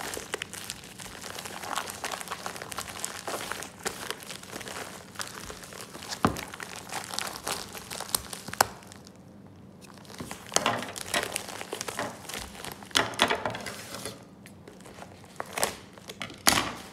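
Paper wrapping crinkling and rustling as it is pulled and torn off a package by hand, with a few sharp snaps.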